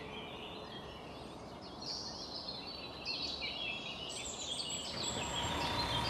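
Background ambience of birds chirping over a steady hiss, with the chirps growing busier after the first couple of seconds. Near the end, steady tones come in, leading into music and a vehicle.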